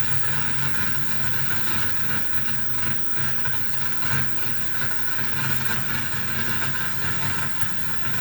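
Noise music from a mixer-feedback, reel-to-reel tape and reverb rig: a steady hissing drone over a low, wavering rumble.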